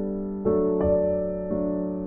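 Background music: slow, sustained piano chords, with a new chord or note struck about every second and left to ring.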